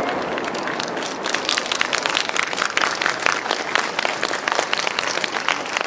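A large outdoor crowd applauding, the clapping growing dense about a second in.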